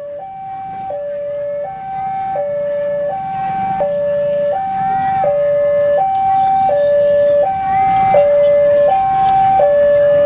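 Railway level-crossing alarm sounding an electronic two-tone signal, alternating high and low about every two-thirds of a second, to warn that a train is approaching as the barrier lowers. It grows louder over the first few seconds, over a low rumble of motorbike engines.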